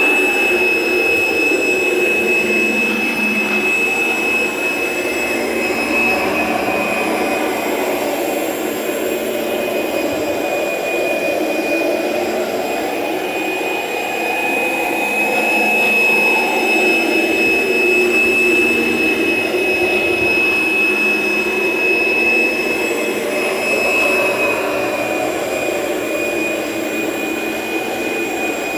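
Kirby Generation 3 upright vacuum running with its carpet shampooer attached: a loud motor with a steady high-pitched fan whine, swelling and easing slightly.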